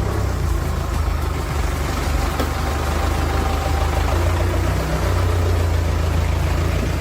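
Heavy machinery's engine running steadily, a deep, even low rumble.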